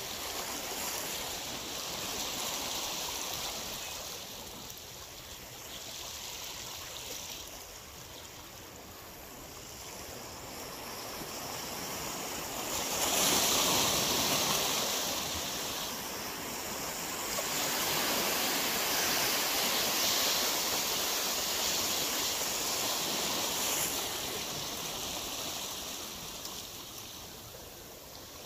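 Sea waves washing against the rocks of a breakwater: a steady hiss of surf that swells and falls, loudest about halfway through and again for several seconds after.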